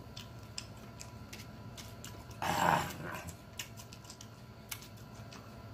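A man chewing a mouthful of sausage with his mouth closed, making soft wet mouth clicks. About two and a half seconds in comes one short, loud breathy huff.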